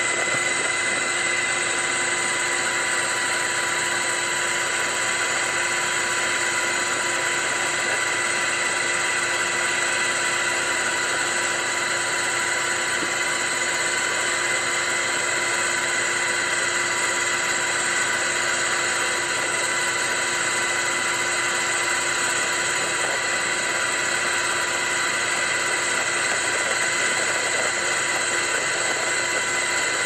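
Steady aircraft engine noise with several constant whining tones over an even rush, unchanging throughout.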